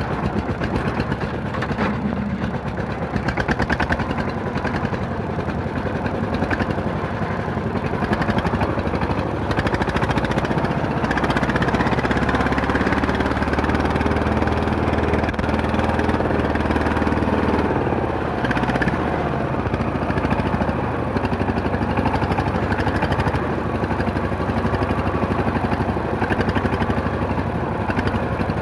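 A motor vehicle engine running steadily with an even, rapid firing pulse.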